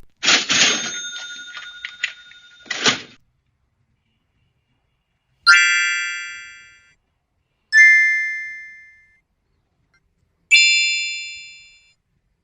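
Three separate chime-like tones, each struck once and fading away over about a second and a half. Before them, near the start, comes a noisier sound lasting about three seconds that carries a few held tones.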